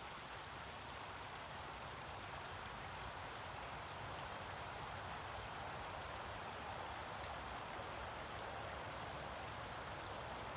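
Backyard pond water trickling and splashing steadily.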